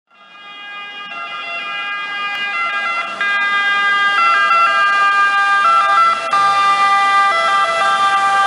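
Water ambulance's siren, stepping back and forth between pitches, growing steadily louder as the boat approaches and sweeps past.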